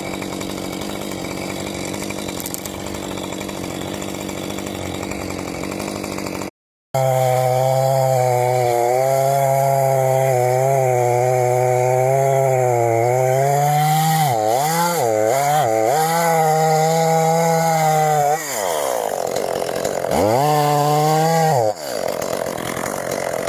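Two-stroke chainsaw cutting into a large oak. It runs steadily and fairly quietly at first, then after a short break it runs loud at full throttle, its pitch sagging and recovering as the chain works through the wood. Near the end the revs drop off and climb back twice.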